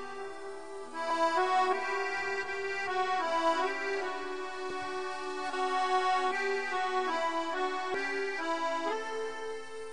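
Background instrumental music: a melody of held notes over sustained chords.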